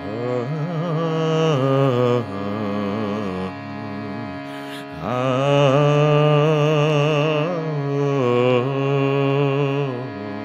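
Overtone singing over a steady shruti box drone: a low sung tone held in two long phrases, its overtones shifting into a high, whistle-like melody, with a breath about five seconds in.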